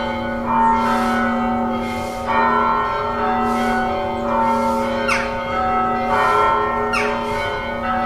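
Village church bells tolling, about six strokes at uneven spacing, each ringing on and overlapping the next.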